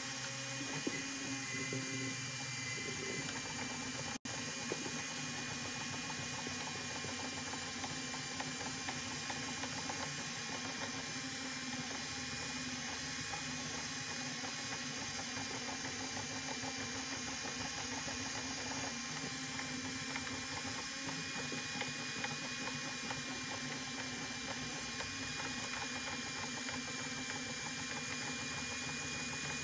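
M3D 3D printer running a print: its stepper motors whine in several steady tones over fine, rapid ticking and clicking from the moving mechanism. The sound cuts out for a split second about four seconds in.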